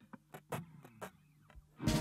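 Background music: a few faint, scattered notes, then the track comes in loudly near the end.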